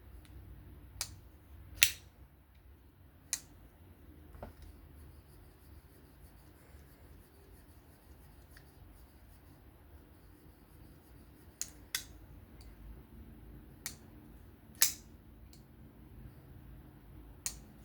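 Sharp metallic clicks of a folding pocket knife being flicked open and snapped shut, about nine at uneven spacing, the loudest about two seconds in and again near fifteen seconds. The blade is being worked to test pivot tension after a small turn of the pivot screw.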